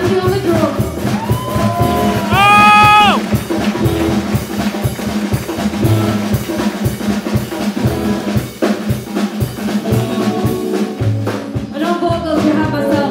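Live band playing with drum kit, upright double bass and electric guitar, and a woman singing at times. A loud held note that slides up comes about two and a half seconds in.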